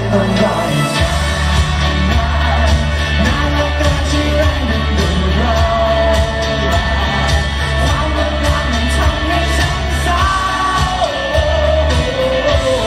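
A man singing a Thai pop song live into a handheld microphone over a loud backing track with heavy bass and a steady beat, amplified through a PA.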